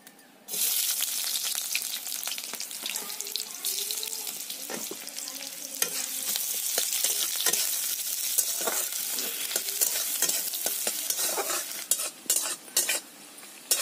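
Food hits hot oil in an iron kadai and sets off loud sizzling about half a second in. The oil keeps frying steadily while a metal spatula scrapes and stirs the pan, with frequent sharp clicks. Near the end the sizzle falls back and single spatula scrapes stand out.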